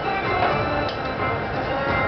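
Bally Attack from Mars pinball machine in play: its electronic game music and sound effects, with a sharp click or two from the playfield about a second in.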